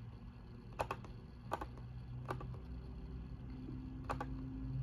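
Computer mouse button clicking four times, about three-quarters of a second apart, over a faint low steady hum.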